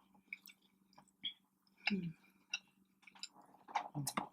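Close-up eating sounds: soft chewing and biting with scattered short mouth clicks, a few in a row, over a faint steady low hum.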